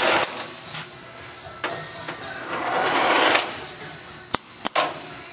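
Automatic tube loader for a Duraturn 1530 lathe cycling. A rush of hissing noise at the start, another swelling and cutting off around three seconds in, then two sharp clacks a few tenths of a second apart.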